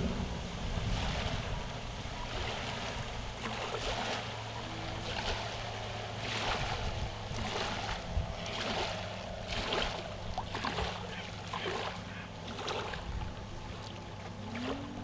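A motorboat's wake washing against the bank in short irregular splashes, about one a second, over the boat's engine droning faintly in the distance. Near the end the engine's pitch rises.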